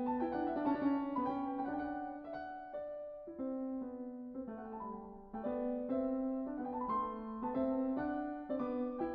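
Piano music, with separate notes struck and fading one after another.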